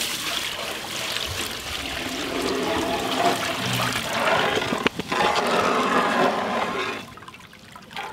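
Water poured into a large metal pot of sugar and swished around with a metal ladle to make sugar syrup: a steady rush of splashing water, with a sharp knock about five seconds in. It quietens near the end.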